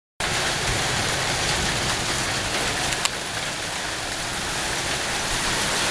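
Hail and heavy rain pelting a wooden deck and fence, a dense, steady clatter and hiss. One sharp tick stands out about three seconds in.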